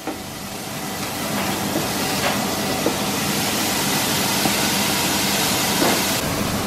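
Beef patties sizzling and steaming on a flat-top griddle under an upturned frying pan, a steady hiss that builds over the first second; the trapped steam is melting the cheese slices on top.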